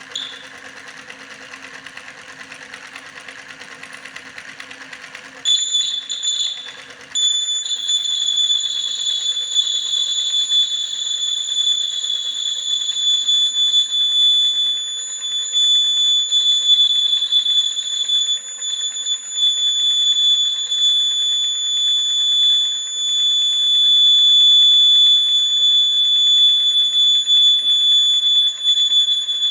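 A small electric motor whirring steadily. About five seconds in, an electronic buzzer starts sounding one continuous high-pitched tone, cutting out briefly before holding steady.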